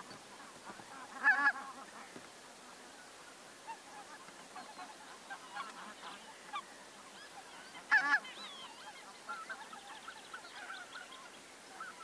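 Waterfowl calling on a wetland: two loud, short calls, about a second in and about eight seconds in, over a steady scatter of softer calls from other birds.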